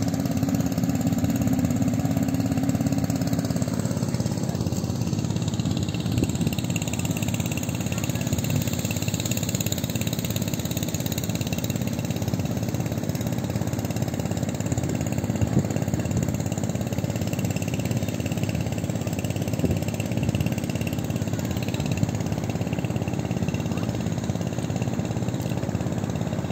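An engine running steadily. In the first few seconds an extra tone sinks a little and then fades out.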